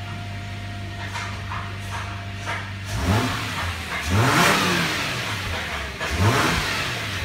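Subaru Legacy 3.0-litre flat-six (H6) boxer engine heard at the tailpipe, idling steadily, then revved in three quick blips from about three seconds in, each rising and falling back to idle.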